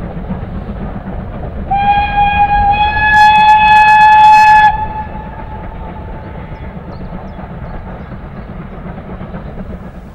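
Steam locomotive whistle sounding one long, steady blast of about three seconds, starting about two seconds in, over the low steady rumble of the train running.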